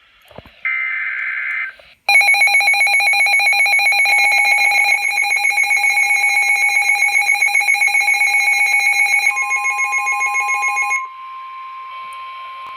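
Emergency Alert System alert tones: a roughly one-second burst of digital header tones, then the loud, steady, pulsing two-tone EAS attention signal for about nine seconds, which gives way around 11 seconds to a quieter single steady tone over a hiss, signalling that an emergency message is about to be read.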